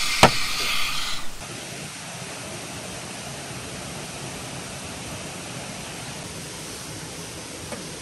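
A steady, even rushing of a valley stream's water. It comes in abruptly about a second and a half in, after a short loud passage with a sharp click that cuts off.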